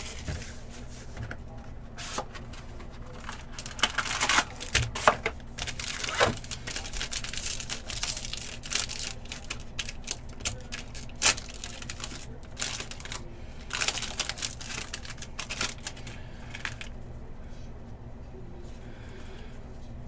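Foil wrapper of a Panini Origins football card pack being torn open and crinkled, with sharp clicks and rustles from handling the box and cards. The crinkling and snapping come in irregular bursts and thin out near the end.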